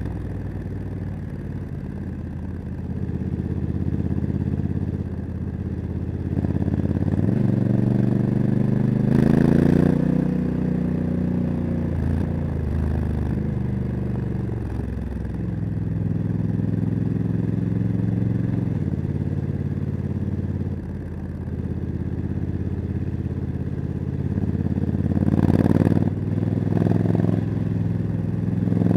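Honda CRF1100 Africa Twin's 1084 cc parallel-twin engine, breathing through a Leo Vince exhaust, pulling through the gears of its DCT gearbox. The engine note rises several times and drops back between shifts and off the throttle.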